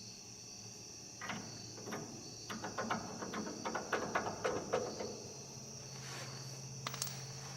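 Crickets chirping steadily in the background. Between about one and five seconds in come a run of light knocks and clicks as the steering brace's bearing is handled and turned on the steering shaft. A low steady hum comes in near the end.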